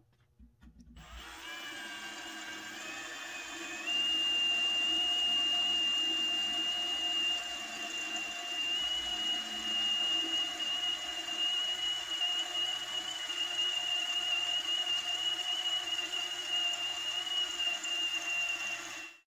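Cordless drill boring a quarter-inch hole through the steel shell of a wood stove. The motor whine steps up in pitch over the first few seconds, then holds a steady high whine under load until it stops just before the end.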